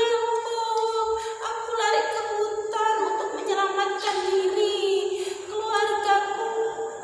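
A woman singing unaccompanied in a high voice, holding long steady notes.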